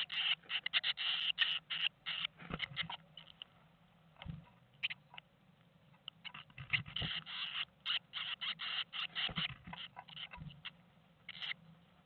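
Blue tits shifting about in the nest cup inside a wooden nest box: quick scratching and rustling of the feather and hair lining in two busy spells, with a few dull knocks.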